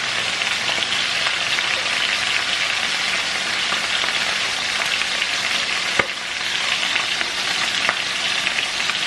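Chicken thighs sizzling steadily in oil as they brown in a large frying skillet, with a single sharp knock about six seconds in.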